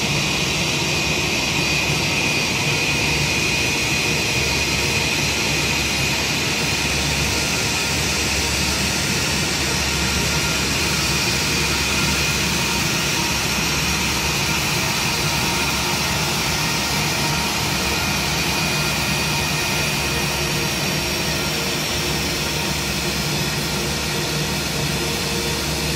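Twin turbofan engines of an Airbus A320-family airliner running at idle as it taxis in to the gate: a steady jet roar with a constant high whine on top, unchanging throughout.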